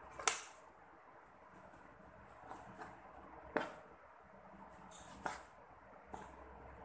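A kitchen knife cutting brinjal (small eggplant) into chunks on a wooden chopping board: a few sharp, irregular knocks of the blade on the board, the loudest about a quarter second in and others around three and a half and five seconds in.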